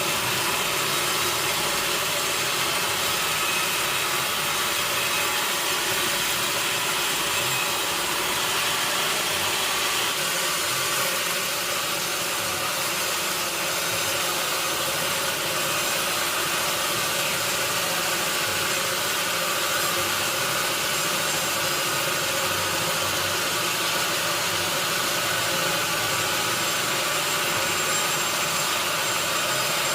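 Sawmill machinery running steadily, a constant engine-like noise with no breaks or changes in level.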